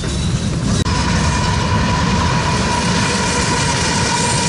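Freight cars rolling past, then, after a cut about a second in, a pair of CSX GE Evolution-series (GEVO) diesel locomotives passing at the head of a tank train. The locomotives' engines rumble under a steady high whine.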